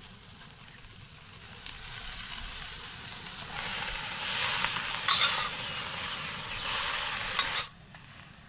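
Chopped leafy greens with garlic frying in hot oil in a metal wok (kadai) on a portable gas stove, sizzling as they are stirred with a spatula. The sizzle builds over the first few seconds, is loudest in the middle, and stops abruptly near the end.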